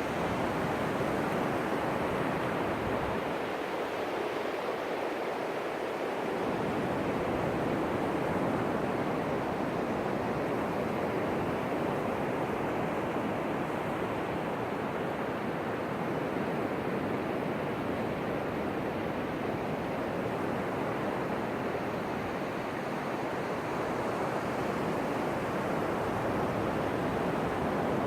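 Ocean surf washing steadily onto a beach, a continuous rushing with gentle swells in loudness.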